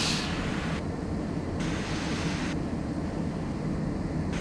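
Steady rushing noise inside a Gulfstream business jet's cockpit during the climb after takeoff: airflow and engine noise, with the hiss in the upper range stepping up and down a few times.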